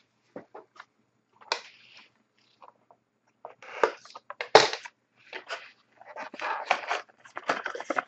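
Sealed trading-card box being opened by hand: plastic wrap crinkling and cardboard tearing in a run of irregular rustles and tears, busiest from about three and a half seconds in.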